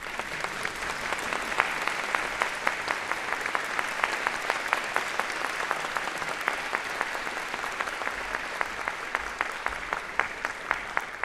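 Concert audience applauding: many hands clapping together, building up over the first second, holding steady, then thinning near the end.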